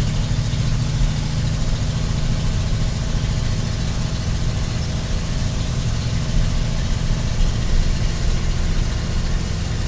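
1986 Ford F250's freshly rebuilt 351 Windsor 5.8 L V8 running at a steady low speed, an even low engine note with no revving.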